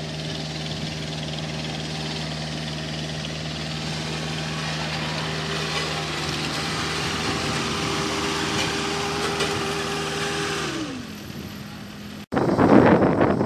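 Diesel engine of a tandem asphalt roller running steadily close by, with paving machinery working behind it; about eleven seconds in its tone falls in pitch and gets quieter. Near the end a louder rushing noise cuts in.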